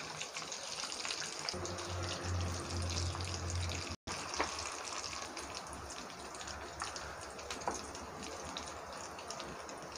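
Breadcrumb-coated chicken cutlets frying in hot oil: a steady sizzle with scattered crackles. A low hum joins from about 1.5 s to 4 s, and the sound drops out briefly at about 4 s.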